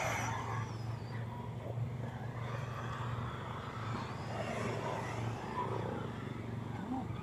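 Radio-controlled cars racing on a dirt track, their motors giving a high whine that rises and falls as they speed up, brake and pass, over a steady low hum.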